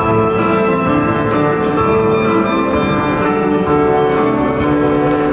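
Symphony orchestra playing live, with held chords under a changing melody.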